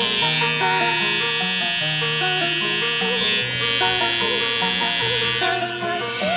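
Hair trimmer with a gold T-blade buzzing steadily as it cuts a hairline edge-up, stopping about five and a half seconds in. Background music with a moving melody plays throughout.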